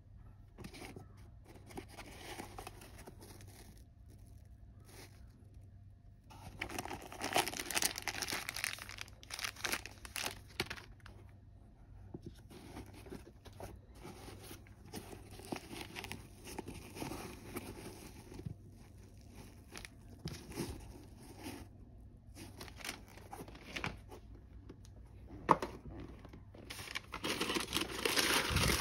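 Tissue paper crinkling and rustling in irregular bursts as hands handle the sneaker's paper stuffing and the box's wrapping paper, loudest near the end, with a single sharp tap a few seconds before the end.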